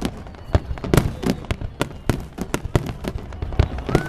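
Fireworks bursting in a rapid, irregular barrage of sharp bangs, several a second.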